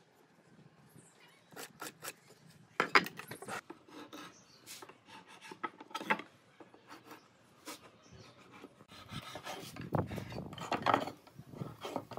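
Pine boards knocking and sliding against each other on a wooden workbench, with pencil and marking-gauge scratching on the wood. The knocks are scattered, the loudest about three seconds in, and a longer scraping stretch comes near the end.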